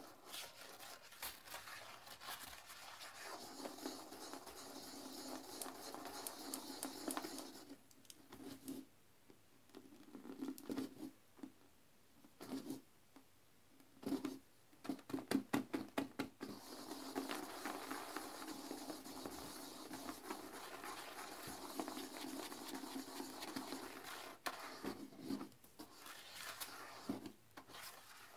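Toilet brush scrubbing the inside of a porcelain toilet bowl in sudsy cleaner: wet, scratchy bristle scrubbing. It runs continuously at first, slows to separate strokes in the middle, then becomes continuous again.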